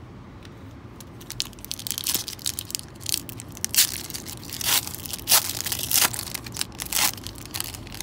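Foil trading-card pack wrapper being torn open and crinkled by hand, a run of sharp crackles starting about a second in.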